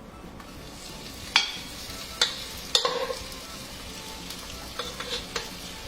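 Butter sizzling on a hot sizzling plate as fried tofu cubes are added, with a steady frying hiss. A utensil clinks sharply against the plate a few times, three spread over the first three seconds and a small cluster near the end.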